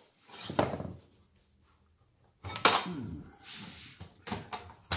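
Vinyl plank flooring being handled and pushed into place on a wooden subfloor: a short scrape, quiet, then a sharp knock about two and a half seconds in, a brief sliding hiss, and a few light clicks near the end.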